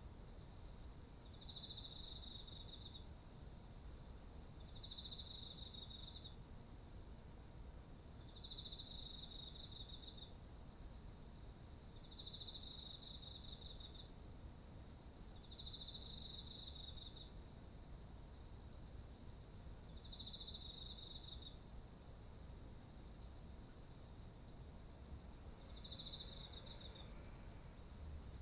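Autumn insects (crickets) chirring together: one holds a continuous very high trill, while others repeat pulsed trilled phrases a second or few long, broken by short pauses.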